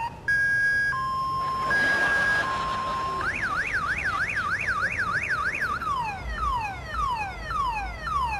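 Car alarm siren cycling through its tone patterns. First comes a slow two-tone high-low alternation, then a fast up-and-down warble about a third of the way in, then repeated falling sweeps about two a second near the end.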